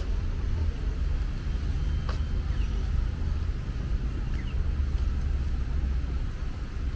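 Outdoor background noise: a steady low rumble, with a couple of brief faint high chirps and a soft click about two seconds in.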